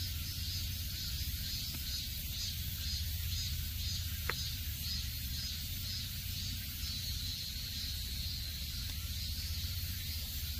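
Insects calling in a steady chorus: a high buzzing trill pulsing about twice a second, evening out into a steadier buzz after about five seconds, over a low rumble. A single short chirp sounds about four seconds in.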